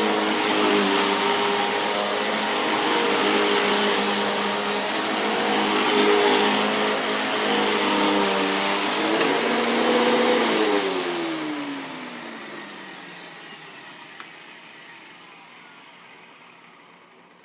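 Eureka The Boss 5856 upright vacuum cleaner with its 12-amp motor running steadily with a whine, then switched off about ten seconds in and spinning down, its pitch falling as it winds down; a short click near the end. The owner takes its running noise as a sign that the roller brush needs replacing.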